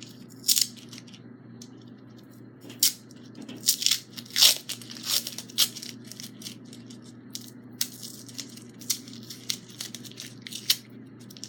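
Tape and wrapping on a small taped-up package being torn and crinkled as it is pulled open, in short irregular rips, the loudest about four and a half seconds in.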